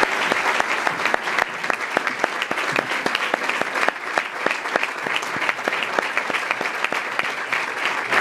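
Audience applauding: a dense sound of many hands clapping, with louder single claps standing out.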